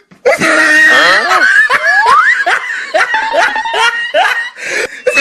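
Laughter in quick repeated bursts, mixed with short high squeals and pitch glides, one rising sharply about two seconds in.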